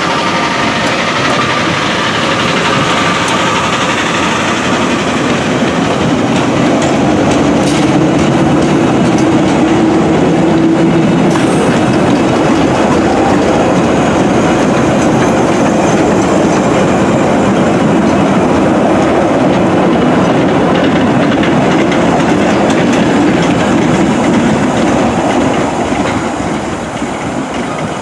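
London Underground 1962 Stock rail adhesion train running past at a platform: a steady, loud rumble of wheels on rail with a constant low hum. It eases off slightly near the end.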